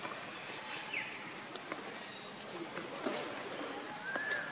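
Forest insects keeping up a steady high-pitched drone, with a few faint short chirps and small clicks over it.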